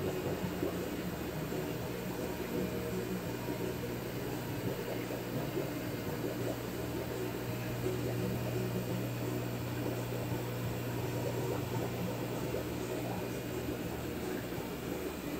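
Steady low machine hum with an even hiss, unchanging throughout.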